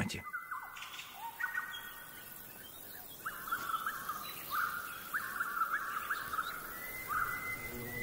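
European bee-eaters calling: a series of short rolling calls, one after another, with a brief lull about two seconds in.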